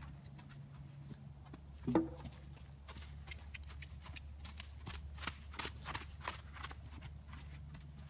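Nez Perce horse's hooves thudding on arena dirt as it moves around on a lunge line, an irregular run of hoofbeats that is busiest a little past halfway. About two seconds in, a short pitched vocal sound, the loudest moment, cuts across the hoofbeats.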